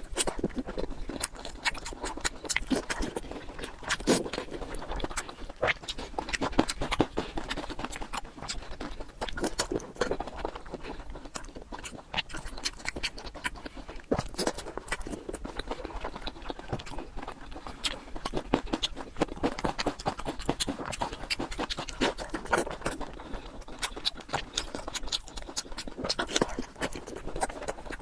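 A person eating close to the microphone: wet chewing and lip-smacking with many small irregular clicks, and breathing between bites.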